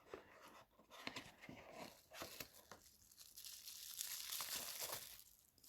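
Faint crinkling and rustling of packaging as the contents of a mobile phone box are handled, with a few light clicks in the first couple of seconds and a steadier stretch of rustling from about three to five seconds in.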